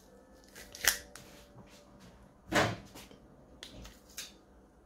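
Metal garlic press clicking and knocking as garlic cloves are squeezed through it into a bowl of mayonnaise, then a knife scraping the pressed garlic off the press. A few short knocks, the loudest about two and a half seconds in.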